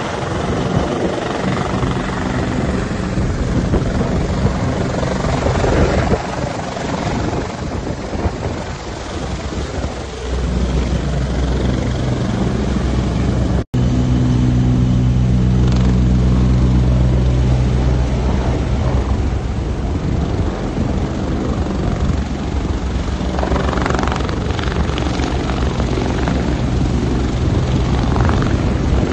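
Bell 430 twin-turbine helicopter hovering low, with its rotor beat and turbine whine running steadily. The sound drops out for an instant about 14 s in and comes back louder, the low rotor tones stronger.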